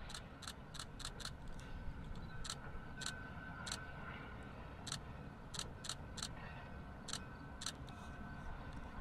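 Freight train rolling across a steel railroad bridge, heard from across the water: a steady low rumble with a faint steady high whine and irregular sharp clicks, some in quick pairs.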